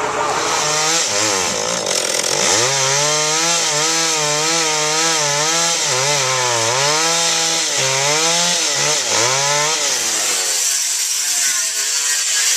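Chainsaw cutting into a log, its engine pitch dipping and recovering again and again as the chain bogs under load, easing off near the end.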